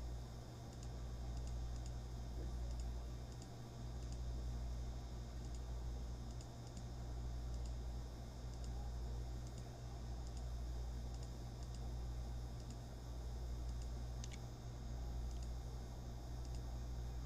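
Faint, irregular clicks of typing on a computer keyboard, about one or two a second, over a steady low electrical hum.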